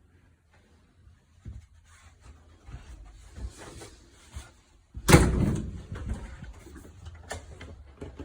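Scattered knocks and rustles of someone moving about inside a small room, with one loud bang about five seconds in, followed by a few lighter knocks.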